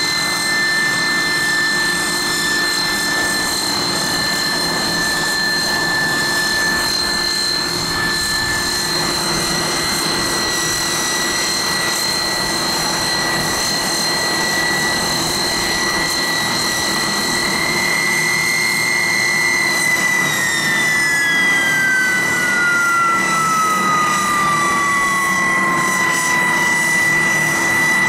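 Hawker Siddeley HS 748's Rolls-Royce Dart turboprop engines running on the ground during an engine run: a steady, high whine over a constant rush. About two-thirds of the way through, one whining tone glides steadily down in pitch while another holds.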